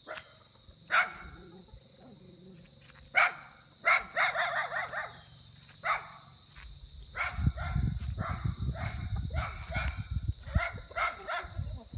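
A dog barking repeatedly: a few separate barks, then a quick run of barks about every half second from about seven seconds in, over a low rumble.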